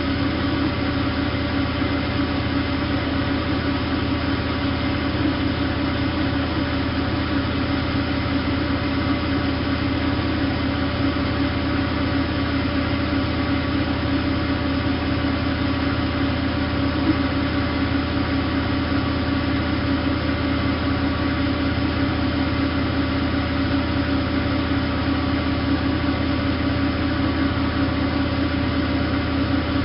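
Bosch WFK 2431 front-loading washing machine running steadily, its motor giving a constant hum with a few steady tones and no change in speed.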